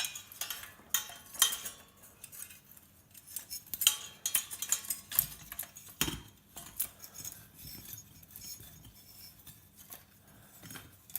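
Small metal parts of an old light fitting clinking and knocking irregularly as it is taken apart by hand, with a few louder knocks among lighter clicks.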